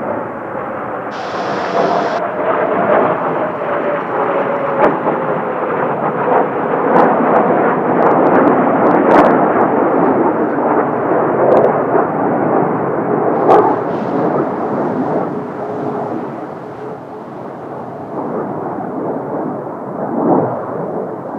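Formation of Kawasaki T-4 jet trainers flying past: a rumbling jet roar that swells to its loudest about halfway through, then fades away. A faint whine slides down in pitch as the jets pass.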